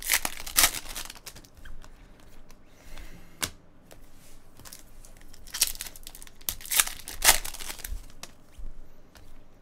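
The foil wrapper of a Bowman's Best baseball card pack being torn open and crinkled by hand, in short bursts of tearing at the start and again in a cluster a little past halfway, with quieter handling rustle between.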